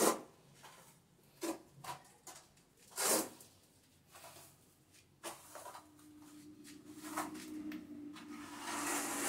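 Scattered short scrapes and knocks of floor tiling work as tiles are set in mortar, three sharper ones in the first few seconds. A faint steady hum comes in about halfway and slowly grows louder.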